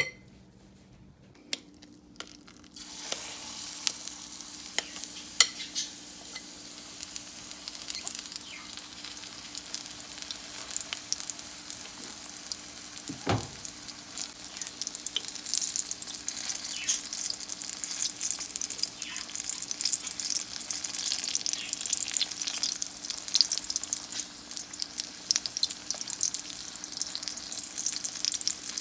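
Libyan ajja batter of egg, tomato, onion and flour frying in hot oil in a pan: a crackling sizzle that starts about three seconds in and grows louder. A single knock comes about halfway through.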